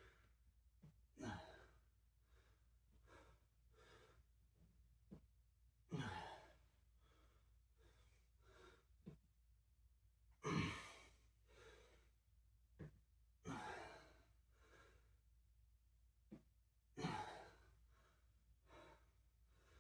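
A person's heavy breaths from exertion during a workout: loud exhales about every four seconds, with fainter breaths between.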